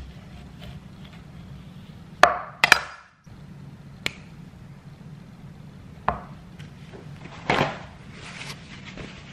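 Chef's knife cutting an avocado in half on a wooden cutting board: a handful of sharp knocks of the blade and fruit against the board, the loudest pair about two seconds in.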